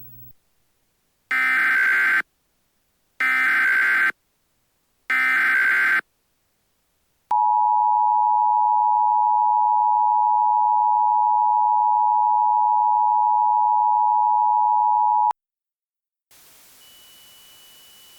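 Emergency Alert System tones: three short bursts of warbling SAME header data, each about a second long with about a second between them, then the steady two-tone EAS attention signal held for about eight seconds, which cuts off sharply. The tones announce an emergency alert broadcast.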